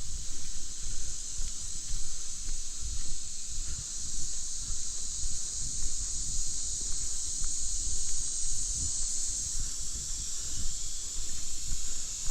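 Steady high-pitched drone of insects in the forest, with an uneven low rumble on the microphone underneath.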